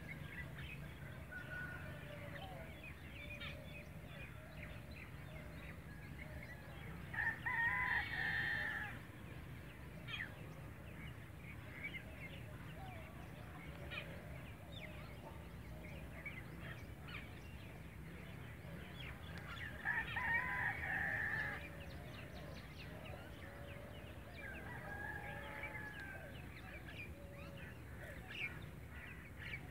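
A rooster crowing twice, once about a quarter of the way in and again about two-thirds in, each crow lasting a second or two, with a fainter call near the end. Small birds chirp throughout.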